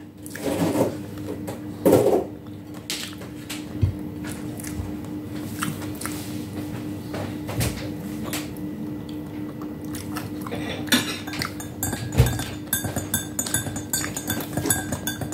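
Eating sounds: chewing with scattered light clicks, then, from about eleven seconds in, a metal spoon clinking rapidly against a glass as it stirs coffee. A steady low hum runs underneath.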